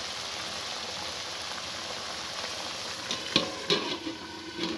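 Browned onions sizzling steadily in hot oil with a little water in a steel kadai. About three seconds in come several sharp metal clanks as a steel lid is set on the pan, and the sizzling goes on under it.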